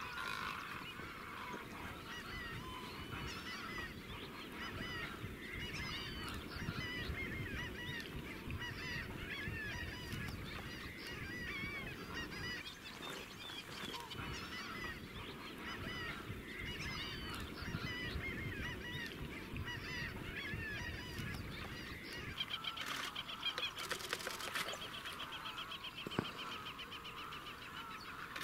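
Dense chorus of a large flock of wetland birds calling at once, many short calls overlapping without a break. Near the end a fast, even rattling trill stands out.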